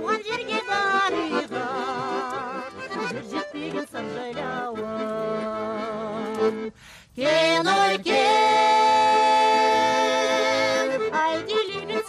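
A woman sings a Kazakh folk song with a wavering vibrato, accompanied by bayan (button accordion). About seven seconds in the sound drops out briefly, then she scoops up into one long held note lasting about three seconds.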